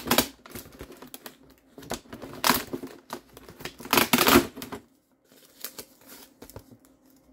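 Clear plastic packaging of a pack of Christmas ball ornaments crinkling and clicking as it is handled. There are irregular crackles, with the loudest bursts about two and a half and four seconds in, and it goes quiet after about five seconds.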